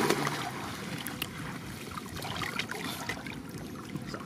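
Shallow flood water splashing right at the start, then sloshing and trickling as a woven fish trap is handled and lifted, water running off it with small splashes.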